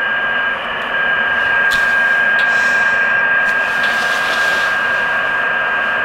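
Icom IC-201 2 m transceiver's receiver hissing through its speaker, with a steady whistling beat tone from a weak test signal sitting in the noise; the tone drops out briefly about half a second in, and there are two faint clicks around two seconds. The signal barely rises above the hiss, well short of the 30 dB signal-plus-noise to noise expected, which the owner takes for a fault in the receive path.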